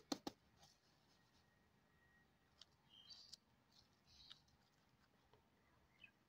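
Faint rustling of uncooked rice grains as a finger digs and stirs through them in a metal tin, in a few short patches. A couple of sharp clicks near the start.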